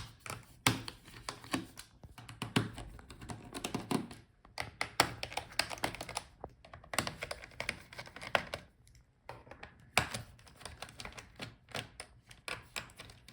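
A screwdriver clicking and tapping on the screws and plastic bottom cover of a Dell Latitude 5410 laptop as the bottom screws are loosened: irregular small clicks and knocks, with short pauses about four and nine seconds in.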